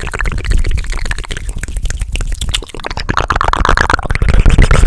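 Fast, aggressive ASMR mouth and hand sounds made close to the microphone: a rapid, uneven run of many quick clicks and pops.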